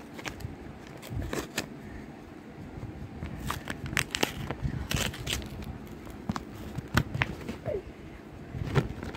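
Clear plastic packaging crinkling and crackling in the hands as a pack of novelty erasers is opened, with irregular sharp clicks and rustles.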